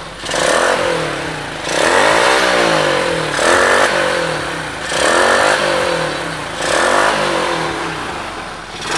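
Bored-up Honda Supra X 100 four-stroke single-cylinder engine, running a 52 mm oversize Vario piston at high compression, revved through the stock exhaust in about five quick throttle blips, each climbing fast and dropping back. A fierce, choppy note that the owner likens to a helicopter.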